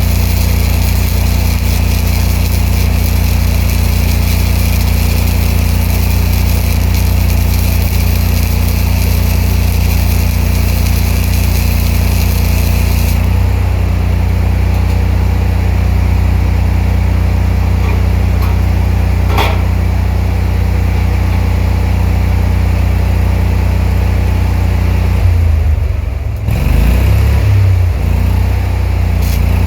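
Engine-driven welder-generator running steadily, with the hissing crackle of MIG welding from a spool gun over it for roughly the first thirteen seconds, when the arc stops. Near the end the engine's speed shifts, settling toward idle once the welding load is gone.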